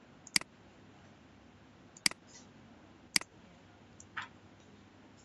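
Computer mouse clicking: three sharp single clicks spaced a second or two apart, then a softer click about four seconds in.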